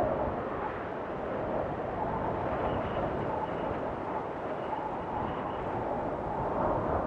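Blizzard wind rushing steadily, with a faint whistling howl that comes and goes.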